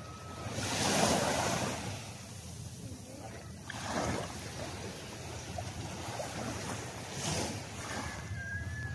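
Small waves washing up onto a sandy shore, three swells of surf, the loudest about a second in and smaller ones near the middle and toward the end.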